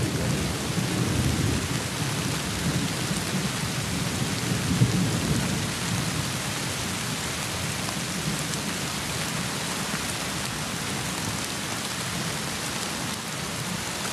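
Steady rain falling, with a low rolling rumble of thunder through the first half that fades away.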